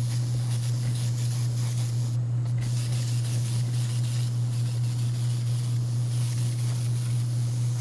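Paint being sprayed: a steady hiss over a constant low motor hum, the hiss easing off briefly about two seconds in, and all of it stopping abruptly at the end.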